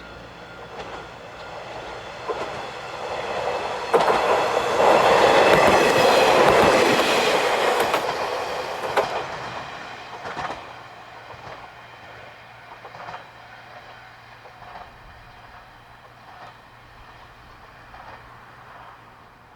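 Diesel railcar on the Hojo Railway passing by, its wheels clacking over rail joints. It is loudest from about four to nine seconds in, with a steady high ringing over the rumble, then fades away with further evenly spaced clacks.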